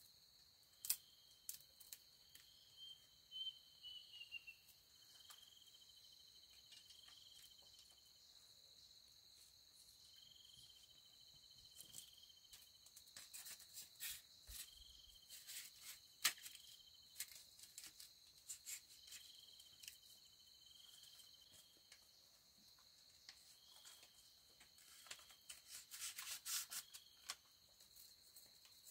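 Faint insects calling: one steady high trill, and a second pulsed chirp of a second or so repeating every few seconds. Scattered light clicks and crackles come and go, thickest about halfway through and again near the end.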